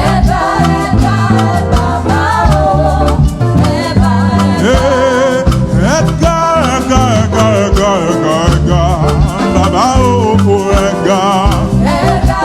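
Live church praise band playing an upbeat Yoruba praise song: drums keeping a steady beat under a bass guitar line, with voices singing over it.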